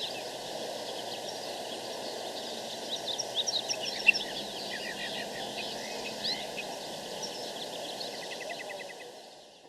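Birds chirping and calling over a steady background hiss, with a quick trill of short notes near the end; the whole sound fades out in the last second or so.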